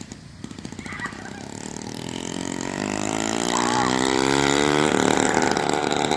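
Small two-stroke dirt bike engine (KTM 65) running as it is ridden, getting louder as it comes closer over the first few seconds, then holding steady.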